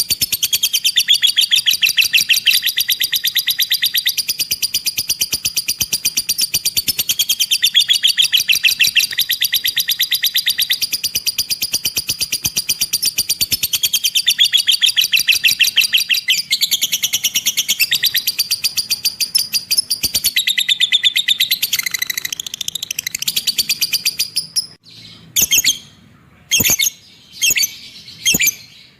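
Lovebird giving a long, fast, rhythmic 'ekek' chatter, a rapid run of high repeated calls. About 24 seconds in it breaks off into a few short, separate calls.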